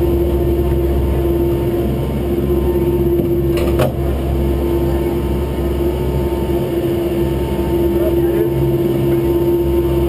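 Lift cabin machinery running through the station with a steady low rumble and a constant hum, and one sharp knock about four seconds in.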